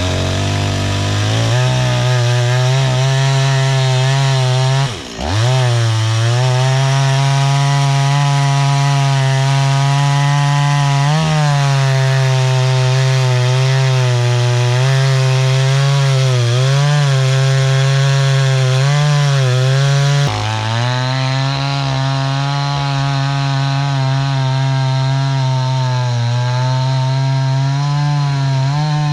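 Stihl chainsaw running at high throttle through a tulip tree log, its pitch wavering and dipping as the chain loads up in the cut. About five seconds in it drops sharply for a moment and revs back up.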